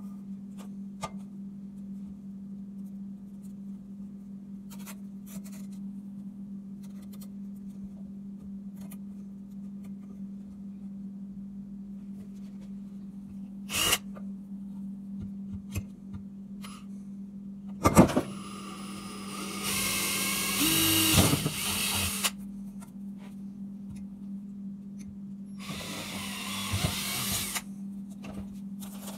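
Cordless drill boring holes through PVC pipe in short runs: one brief burst, then a sharp knock and a longer run of about four seconds, then another burst near the end. A steady low hum lies underneath.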